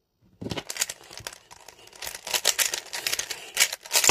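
Rapid, dense clicking and crinkling of small plastic pieces being handled, starting about half a second in.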